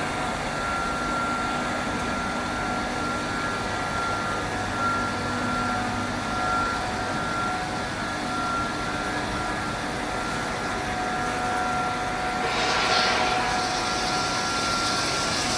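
A 10-ton cube ice machine running: a steady machinery hum with a steady high whine. About twelve and a half seconds in, a short hissing rush rises, and a brighter hiss carries on after it.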